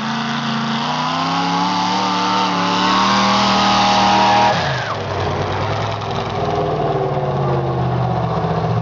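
Newly built racing engine on a test run, revved up and held climbing in pitch for about four seconds, then dropping off sharply to a lower, steadier running speed.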